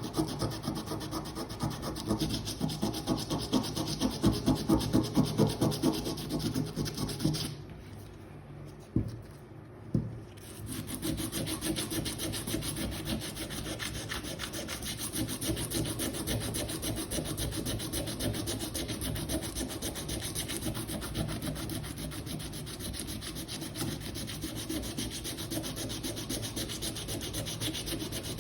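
Sandpaper rubbed back and forth by hand over the metal tips of a rusty hand tool, scouring them clean to bare metal. The strokes stop for a few seconds about a quarter of the way in, with two light knocks, then carry on steadily.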